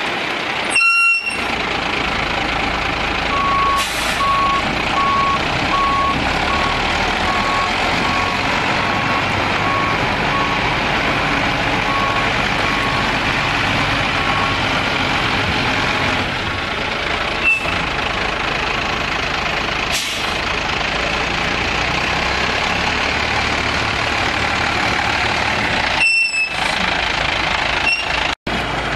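Diesel truck running, an International DT466E turbo inline-six, while its backup alarm beeps steadily, a bit more than once a second. The beeping starts a few seconds in, grows fainter and dies out about halfway through. The engine keeps running.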